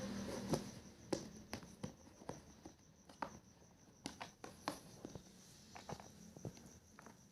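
Irregular light clicks and taps from the plastic parts of a handheld electric face massager being handled, after a low hum dies away in the first second.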